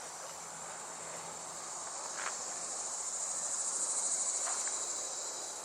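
Insects making a steady, high-pitched, finely pulsing trill that swells louder a few seconds in.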